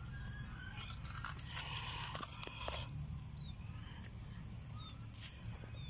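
A person biting and chewing through the rind of a small whole watermelon: irregular crunching bites, most of them from about one and a half to three seconds in.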